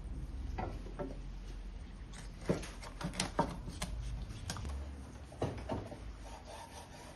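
A string of light clicks and knocks, about a dozen, scattered irregularly over a low steady rumble.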